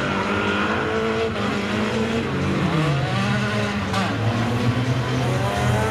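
Engines of several small hatchback banger racing cars running hard around an oval track. Their engine notes rise and fall as they rev and pass.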